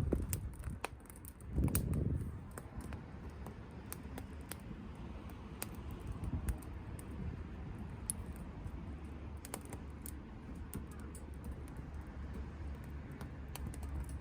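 Softwood burning in a small wood-burning stove, crackling with irregular sharp pops and snaps over a low steady rumble of the fire. A brief louder low rush about two seconds in.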